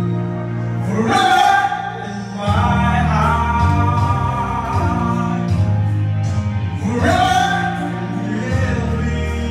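A man singing into a microphone over a karaoke backing track played through a PA system. Sung phrases rise over the steady backing music about a second in and again about seven seconds in.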